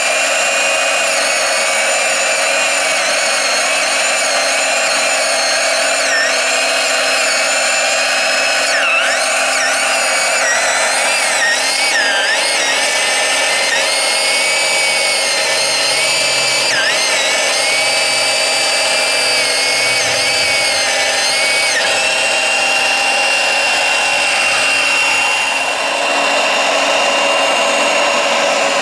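Chainsaw cutter head of a radio-controlled Liebherr R970 excavator sawing through a log: a high electric whine that dips in pitch again and again as the chain bites into the wood, then holds one steady pitch for the last few seconds.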